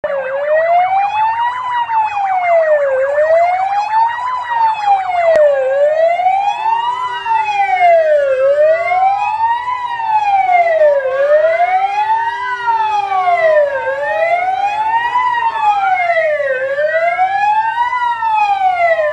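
Sirens of a convoy of fire engines wailing together: several rising-and-falling wails overlap out of step, the lowest sweeping slowly up and down about every three seconds. A steady lower tone is held twice near the middle.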